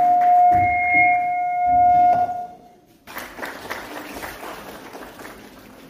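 Public-address microphone feedback: a loud, steady whistling tone that dies away about two and a half seconds in. After that there is only faint, even hall noise.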